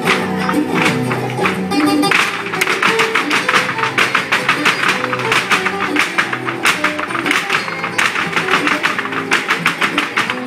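Flamenco music with guitar. About two seconds in, a fast run of sharp percussive taps joins it and keeps going.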